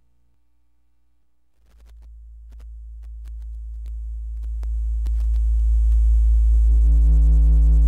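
A 55 Hz sine test tone played through a semiconductor amplifier, a low steady hum that swells up in steps from about a second and a half in, with faint clicks as it rises. Near the end the amplifier starts to clip and a buzzy edge of overtones joins the hum.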